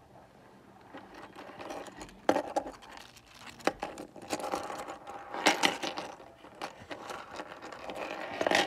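Articulated 3D-printed plastic dragon being handled on a wooden table: its plastic segments clicking and rattling, with a few sharper knocks against the wood.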